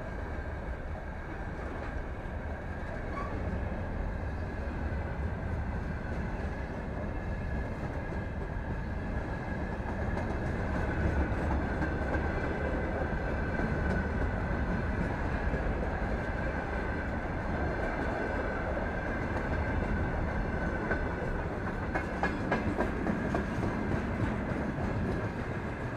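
Freight wagons rolling past at speed: a steady rumble of steel wheels on the rails with a thin steady whine above it. Near the end comes a quick run of sharp knocks as wheelsets cross a rail joint.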